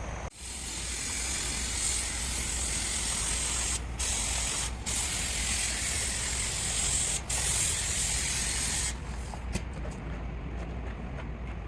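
Spray paint hissing out of a nozzle in long passes, with brief breaks about four, five and seven seconds in, and stopping about nine seconds in.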